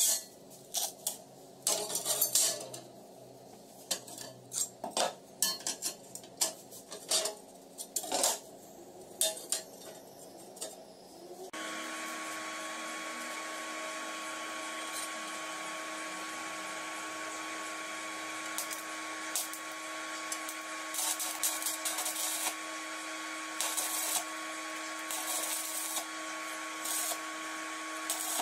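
Steel plate pieces clattering and knocking as they are handled on a wooden workbench. About eleven seconds in, a stick welder's steady hum starts, and in the second half come several short crackling bursts of the arc striking for tack welds joining the axe plates.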